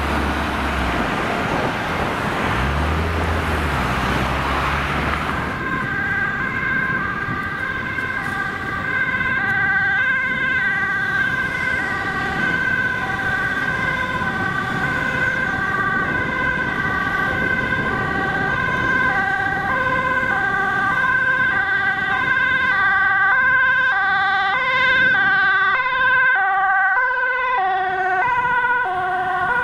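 Road traffic noise with a vehicle engine, then from about six seconds an ambulance's two-tone siren alternating between a high and a low note. The siren grows louder as the ambulance approaches and passes close near the end.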